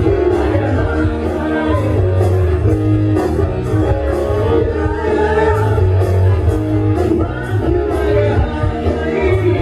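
Live rock band playing with a singer: a steady drumbeat with cymbal strokes, bass and electric guitar under the vocal line.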